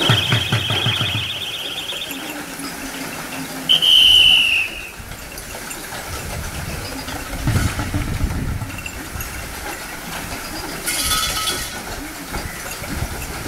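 Whistle blasts: a shrill trilling blast at the start and a louder steady blast about four seconds in. In between there is a low rumble near the middle and a short sharp burst near the end.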